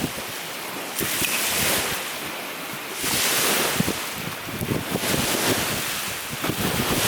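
Strong wind gusting and buffeting the microphone, surging and easing every couple of seconds.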